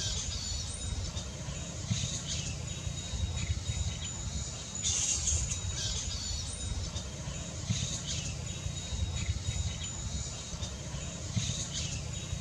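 Large flying foxes (Pteropus vampyrus) at their roost giving short, harsh squawks every second or two, over a steady low rumble and a thin, steady high tone.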